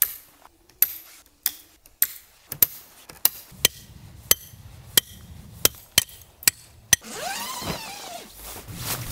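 Metal tent pegs being hammered into frozen ground, about a dozen sharp strikes roughly half a second apart; the frozen ground makes the pegs hard to drive in. Near the end, a short squeaky scrape that rises and falls in pitch.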